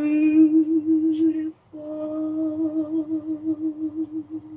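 A solo voice singing a cappella. It holds a long note with a steady vibrato, breaks off briefly about a second and a half in, then holds another long note with vibrato.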